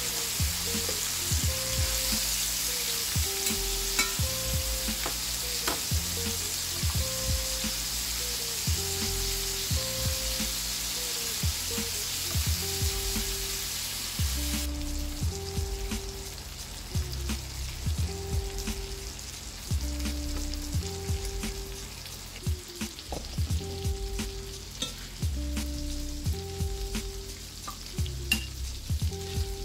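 Pork chops sizzling in butter in a cast-iron skillet, with scattered pops from the fat. The sizzle drops to a quieter level about halfway through. Background music with a repeating melody and bass runs underneath.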